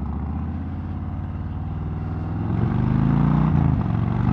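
Harley-Davidson Heritage Softail's Milwaukee-Eight V-twin, breathing through fishtail exhaust tips, pulling under hard acceleration: the engine note climbs and grows louder from about two seconds in, dipping briefly at a gear change about three and a half seconds in before pulling again.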